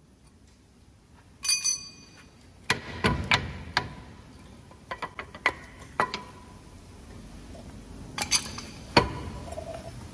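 Metal clinks and knocks from steel brake pads and caliper hardware on an MAN TGX truck's front disc brake being handled. There are several separate groups of sharp strikes, and some of them ring briefly.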